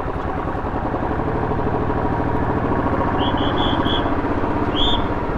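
A vehicle engine running steadily close by, its level rising a little toward the middle. A few short, high chirps sound over it near the end.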